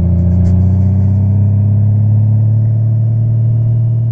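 Honda Valkyrie's 1832cc flat-six engine running under way, its pitch rising slightly over the first couple of seconds and then holding steady.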